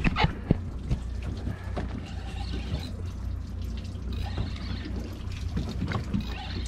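Water lapping and splashing against the side of a small fishing boat's hull, over a steady low rumble, with a few knocks right at the start.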